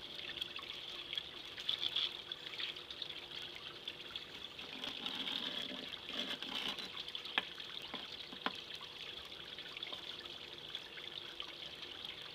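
Water trickling steadily in a thin sheet down a homemade Miller table that is separating black sand and gold from lighter material. A couple of light taps come about halfway through.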